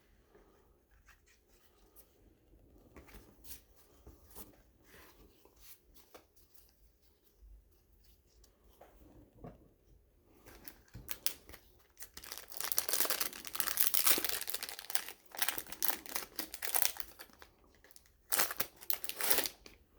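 Sealed trading card pack wrapper being handled, torn open and crinkled, with soft clicks of cards being handled first and louder tearing and crinkling in the second half.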